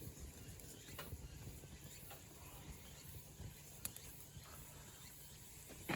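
Faint low rumble with a few sharp, isolated clicks: one about a second in, one near four seconds, and a louder one at the very end.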